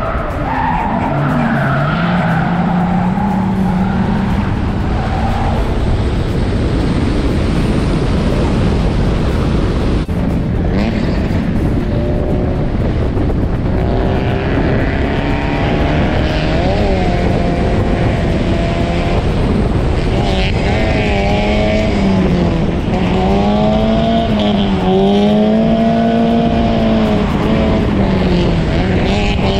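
Drift cars at full throttle on a tight mountain course: an engine held at high revs, its pitch rising and falling with the throttle, over the hiss and squeal of sliding tyres. The engine note stands out more clearly from about halfway through.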